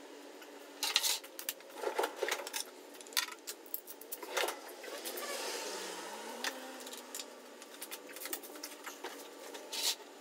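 Hand tools clinking and clattering as they are handled, a series of irregular sharp metallic clicks with a short stretch of softer rustle midway.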